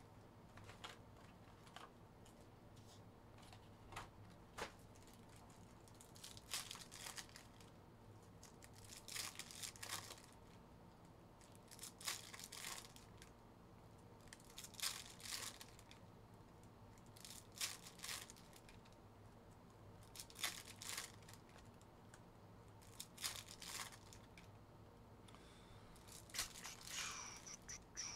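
Panini Optic basketball card packs being torn open one after another, the foil wrappers crinkling, with a short tear every two to three seconds.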